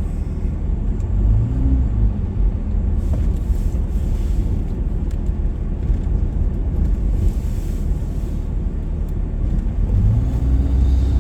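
Vehicle engine running with a steady low rumble and road noise. Its pitch rises about ten seconds in as the vehicle speeds up.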